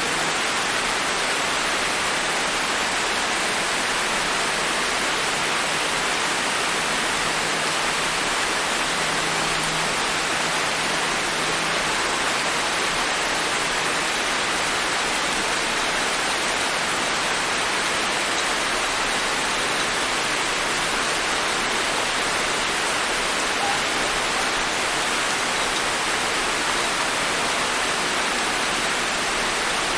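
Steady, gentle rain falling, an even hiss of countless drops with no let-up.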